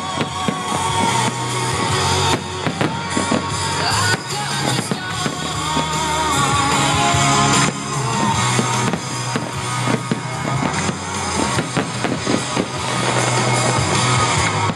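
Aerial fireworks bursting and crackling one after another, with music playing under them throughout.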